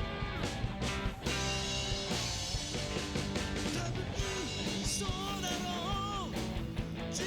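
Background rock music with electric guitar and a drum beat, and a sung or lead melody line near the end.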